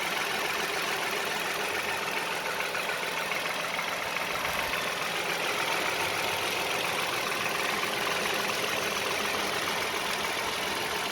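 The 3.5-litre V6 of a 2015 Toyota Sienna idling steadily with no lifter tick audible. The owner had traced the earlier tick to hydraulic lifters not pumping up after long-neglected oil changes, and says it is now gone.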